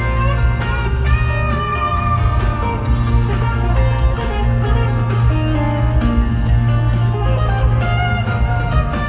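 A live rock band playing, with a guitar lead weaving over heavy bass and drums.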